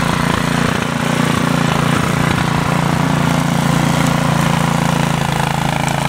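Two-stage snowblower's engine running steadily as it is pushed through snow, a constant, even drone.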